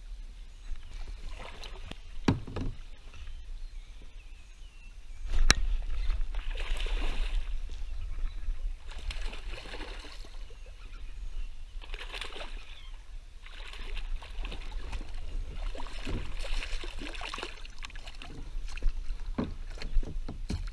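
A hooked bass splashing and thrashing at the surface beside a kayak while it is fought to the boat, with water sloshing against the hull. A knock about two seconds in and a sharp click about five seconds in, after which the splashing grows louder.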